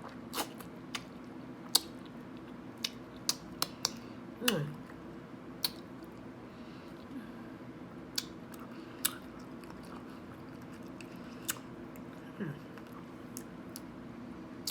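Close-miked eating of curry chicken: wet chewing with irregular mouth clicks and smacks, and twice a short falling murmur.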